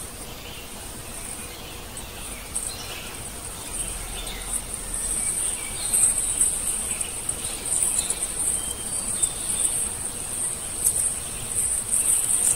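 Insects chirring in a high, pulsing drone that grows louder about six seconds in, with scattered bird chirps.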